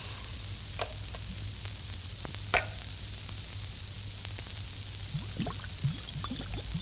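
Steady hiss and low hum of an old film soundtrack, broken by a few soft, short sound effects. In the last second and a half, a run of short, low gulps as the cartoon cook drinks from a jug.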